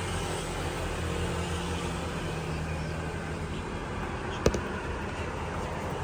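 Steady background noise with a low, even hum, and a single sharp click about four and a half seconds in.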